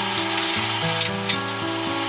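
Wire-feed (MIG) welding arc crackling and sizzling steadily, with a few sharper spatter pops, over background music.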